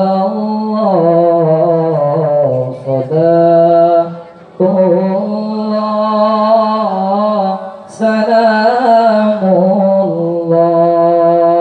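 A young man's voice reciting the Quran in the ornamented, melodic tilawah style, through a microphone and loudspeakers. He holds long notes that waver and bend in pitch, pausing briefly for breath about four and eight seconds in.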